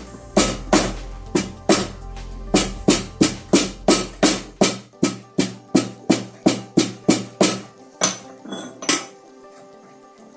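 Background music with a steady percussive beat of about three strikes a second over sustained tones; the bass drops out about five seconds in and the beat stops about nine seconds in.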